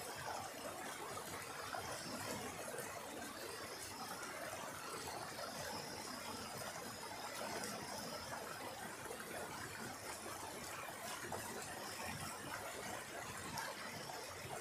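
Mountain stream rushing over rocks in a small cascade: a steady, even rush of water.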